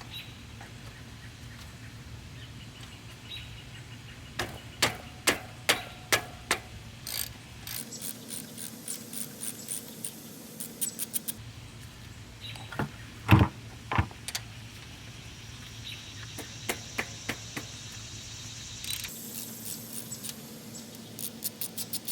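Metal clinks and clicks of a 15 mm wrench on a bicycle's rear axle nuts being loosened, with runs of fast light ticking and one louder knock about 13 seconds in.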